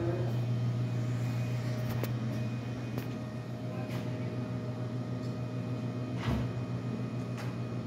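Steady low hum of a building's ventilation system, with faint steady tones above it and a few light knocks, the loudest about six seconds in.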